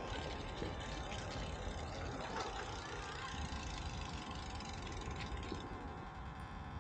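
Steady city ambience: a low hum of road traffic, with faint distant voices.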